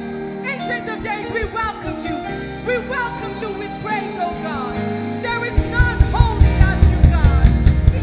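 Live worship music: a woman sings sweeping vocal runs into a microphone over held band chords, and drums and bass come in with a steady beat a little past halfway.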